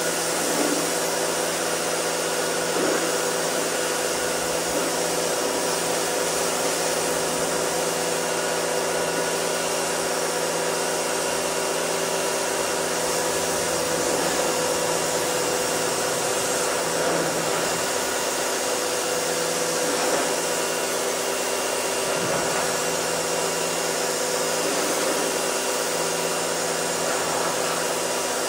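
Pressure washer running steadily, a constant motor-and-pump whir with a hiss of water spray from the wand as the truck is rinsed.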